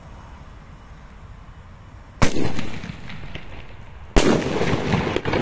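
Two loud shell bursts about two seconds apart from a 38 mm Funke comet-bomb tube (Brokat/brocade effect), each a sharp bang followed by a short trailing tail.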